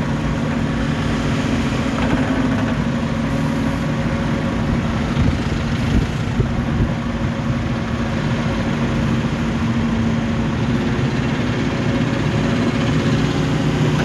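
Heavy diesel engine running steadily at a constant low pitch, near idle.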